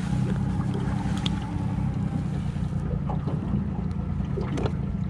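Steady low hum of a small boat's engine running at idle, with wind buffeting the microphone and a few light clicks.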